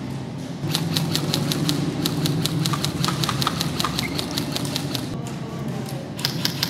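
Airsoft rifle firing in rapid runs of sharp pops, about five shots a second, with a pause near the middle before firing resumes. A steady low hum runs underneath.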